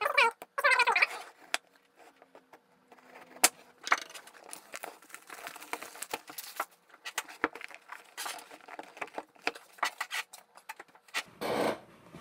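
Plastic shrink-wrap crinkling and tearing as it is pulled off a cardboard product box, with scattered clicks and cardboard rustling and sliding as the outer sleeve comes off. A squeaky chair creaks just after the start and again near the end.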